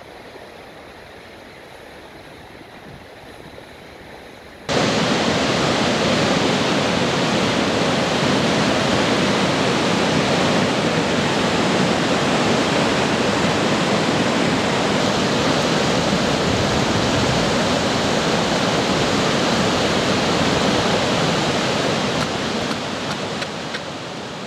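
Floodwater of the Whitewater River rushing in a steady roar of moving water. The rush is quieter at first, then becomes abruptly much louder about five seconds in and stays loud, easing a little near the end.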